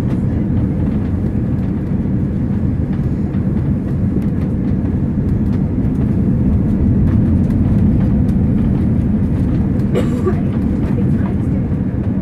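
Cabin noise inside an Airbus A330 on approach to land: a steady low rumble of engines and airflow with a steady hum running through it, growing a little louder about halfway through.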